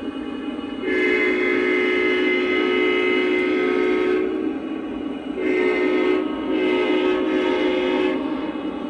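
Lionel Legacy model diesel locomotive's onboard sound system blowing its multi-chime horn: one long blast of about three seconds, then a short blast and a longer one. A steady low rumble of a running model train continues underneath.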